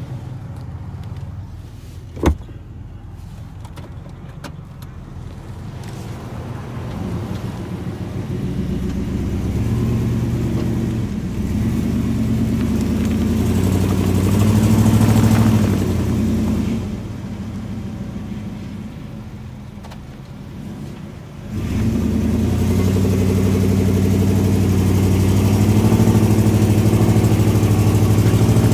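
Lifted Chevy pickup's engine revving hard while the truck is stuck in deep mud on Bogger mud tires. The revving comes in two long pushes: one builds from a few seconds in, eases off past the middle, and a second starts suddenly about three quarters through. A single sharp click comes about two seconds in.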